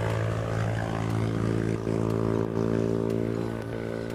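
Bow-mounted electric trolling motor running steadily, an even hum.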